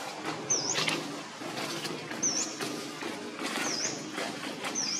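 A bird repeats a short, high call that dips and rises in pitch, four times about one and a half seconds apart, over a steady background rumble.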